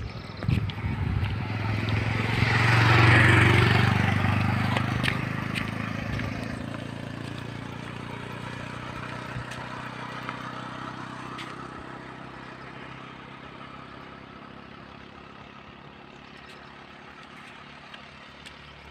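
A motor vehicle passing close by on the bridge road: its engine hum and tyre noise rise to a peak about three seconds in, then fade slowly as it drives away.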